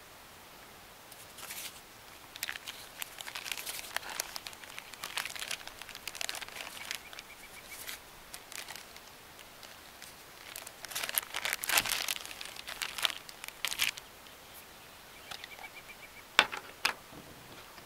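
Plastic food packaging crinkling in irregular bursts as cheese slices and sandwich thins are handled. A couple of sharp clicks come near the end.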